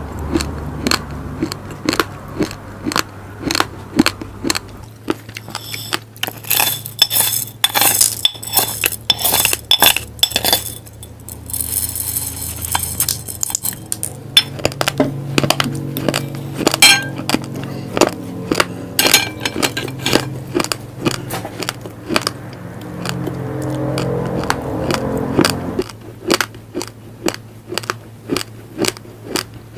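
Raw glutinous rice grains crunched between the teeth up close, sharp cracks coming a couple of times a second, with grains clinking and rattling against a dish at times.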